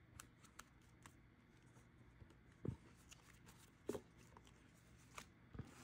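Near silence broken by a few faint, brief rustles and taps of paper banknotes and plastic binder sleeves being gathered up by hand.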